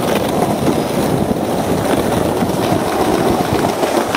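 Skateboard wheels rolling over rough concrete, a steady, even rumble.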